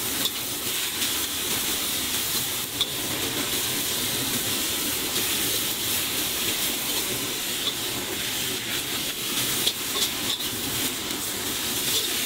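Leafy vegetables sizzling in a wok over high heat as a metal spatula stirs and tosses them, a steady frying hiss with a few short clinks of the spatula on the wok.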